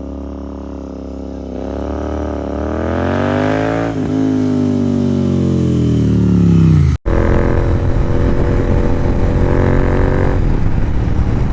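Royal Enfield Interceptor 650's parallel-twin engine running through an aftermarket Red Rooster exhaust, its pitch rising steadily as the bike accelerates for about seven seconds. After a sudden cut, the engine runs at a steady speed under a rushing noise.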